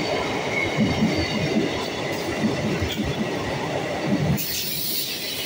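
MEMU electric train's coaches passing close at speed: a steady rumble and rattle of wheels on the rails, with repeated low clacks over the rail joints. Near the end the rumble briefly thins to a hiss.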